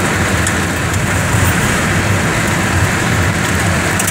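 A heater blowing steadily: a loud, even rushing noise over a low hum.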